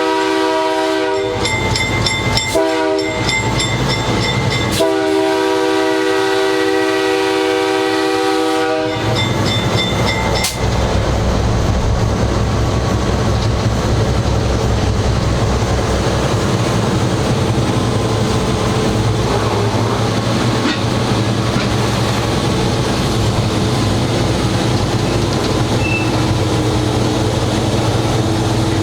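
Nathan K3H air horn on a GE 80-ton switcher locomotive sounding the close of a grade-crossing signal: a long blast that ends about a second in, a short toot, then a final long blast of about four seconds. After the horn stops, the locomotive's diesel engine runs steadily as the wheels roll over the rails.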